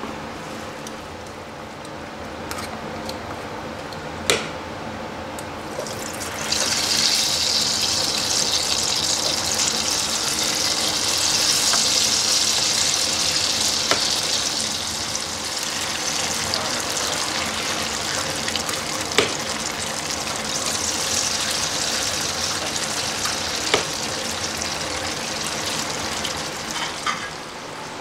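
Falafel balls sizzling in hot oil in a small electric deep fryer. The sizzle starts loudly a few seconds in, after a quieter start, as the balls go into the oil, and carries on steadily. A few sharp clicks sound through it.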